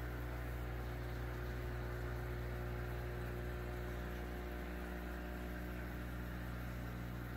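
Steady low hum with several constant tones underneath, unchanging throughout.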